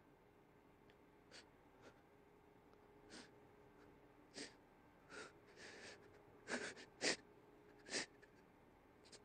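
A man's sharp sniffs and sobbing breaths as he fights back tears: short breaths, a few at first, then closer together and louder, the loudest about seven seconds in.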